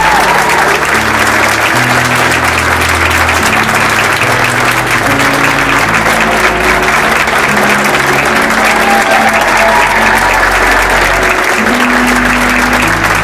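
Guests applauding continuously over loud music with held bass notes.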